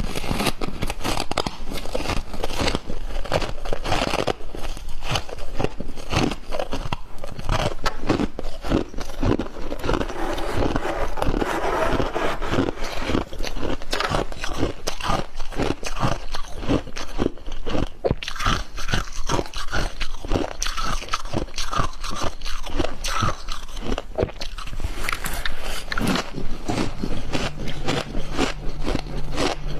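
Close-up crunching and chewing of freezer frost: many quick, irregular crunches and bites throughout. A faint steady low hum comes in near the end.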